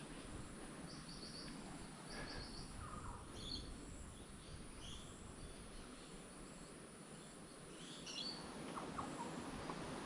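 Faint bush ambience: a low steady rumble with scattered short bird calls, including quick runs of three or four high notes.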